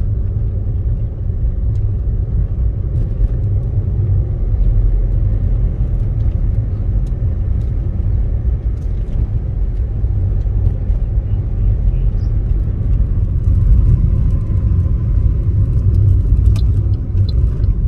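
A car driving along a street: a steady low rumble of road and engine noise.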